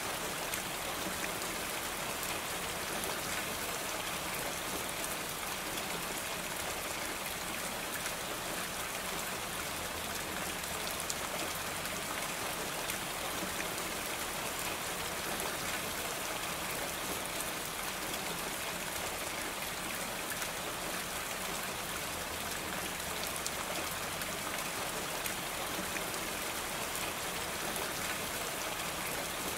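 Steady rain falling on a roof: an even hiss dotted with many small drop ticks.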